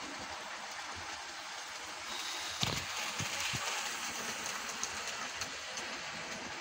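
Model railway wagons rolling on the track: a steady rolling hiss with a few clicks and knocks. It grows louder about two seconds in, with one sharp click then.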